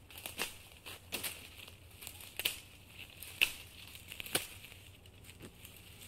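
Footsteps walking through dry brush, each step a crackling crunch with rustling in between, about one step a second. The steps get quieter in the last second or so.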